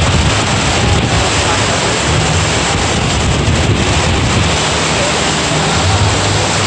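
Heavy tropical squall: a steady, loud rush of downpour with gusting wind buffeting the microphone.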